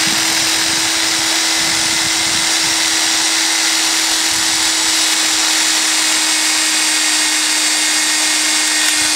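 Electric drill running at a steady speed as its twist bit bores through a clear plastic cassette tape shell. The bit meets little resistance, and the motor's pitch holds level.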